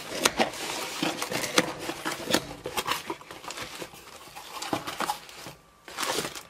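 Cardboard shipping box being torn open, with papery ripping and scraping of the flaps, then rustling and crinkling of plastic air-cushion packing as hands reach inside; the sounds are a rapid string of short rips and crackles that pause briefly near the end.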